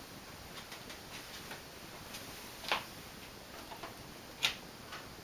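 Four Seasons Spinner ceiling fan with four metal blades running on full speed: a faint steady whoosh of air, with scattered light ticks and two louder sharp clicks, one about midway and one near the end.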